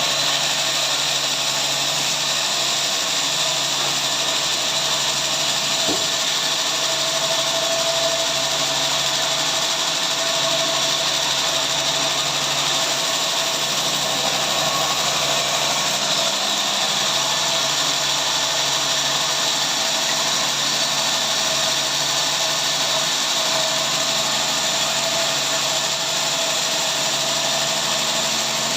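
Sawmill power saw running steadily and evenly with a high whine, cutting through a log.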